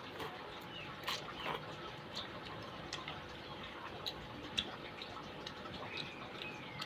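Close-up eating sounds of a person eating noodle soup and crispy tofu: irregular short clicks and smacks of chewing, about one or two a second, with a brief slurp-like glide near the end.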